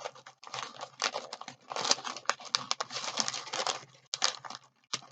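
Paper packaging being handled and opened: a sticker peeled and a cardboard sleeve and box worked open, with crinkling, rustling and small sharp clicks.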